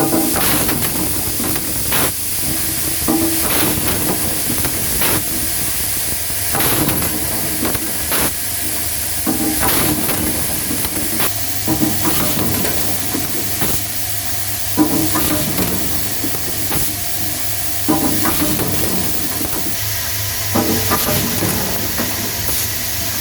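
Automated espagnolette assembly machine running: constant pneumatic air hiss over a steady low hum from the vibratory bowl feeders, with sharp mechanical clacks of the cylinders and parts every second or two.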